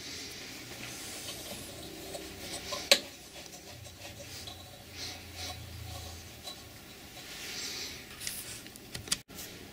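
Quiet handling noises: a toolmaker's clamp being shifted and rubbed against a wooden lathe faceplate while the small part in it is lined up with the drill bit, with one sharp click about three seconds in and a few lighter ticks near the end.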